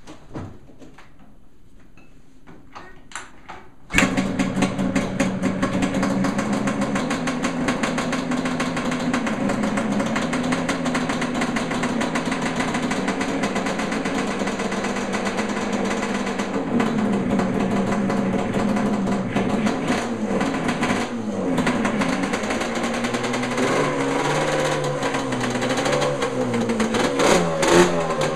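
Yamaha Banshee's twin-cylinder two-stroke engine being kick-started: a few faint clicks of kicking, then it catches suddenly about four seconds in and idles steadily. Near the end it is revved up and down several times.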